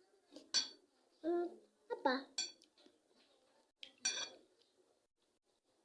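Cutlery clinking against dishes, three or four sharp clinks, with a couple of short voice sounds in between.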